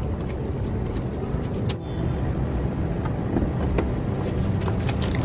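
A steady low rumble, with a few light clicks and taps as the metal door-latch parts and rods inside a stripped car door are handled.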